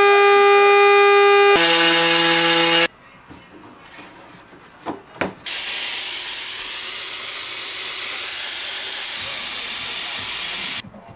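A handheld rotary tool whining at a steady high pitch while working the edge of a dash panel, then a lower steady tone for about a second. After a quieter pause with two sharp knocks comes a long steady hiss that cuts off near the end.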